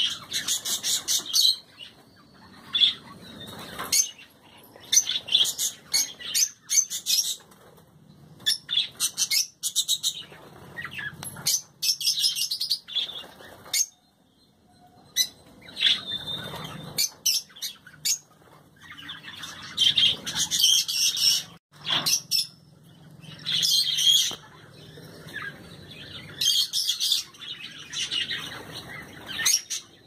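Small cage birds in an aviary chirping in quick, high-pitched bouts, many notes in fast succession, with short pauses between bouts and a brief lull about halfway through.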